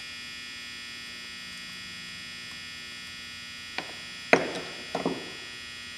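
A steady electrical hum in the recording, with a few short sharp clicks and knocks about four and five seconds in, the loudest near four seconds, as the small drain screw is worked into the bottom of a Marvel Schebler carburetor body by hand.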